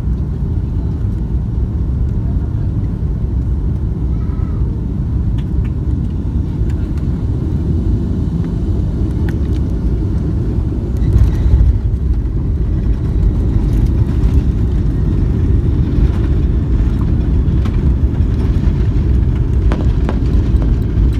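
Airliner cabin noise during landing: a steady low rumble of engines and airflow, with a brief louder surge about halfway through around touchdown, after which the rumble stays louder as the plane rolls down the runway.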